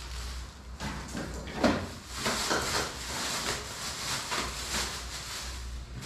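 Clear plastic packaging bag crinkling and rustling in continuous, irregular crackles as a part is pulled out of it.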